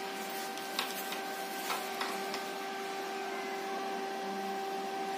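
Yuva 200 A inverter welding machine switched on and idling with no load: a steady whir and hum of the running machine with its cooling fan, holding constant. A few light clicks in the first two and a half seconds as multimeter probes are pushed into its output sockets.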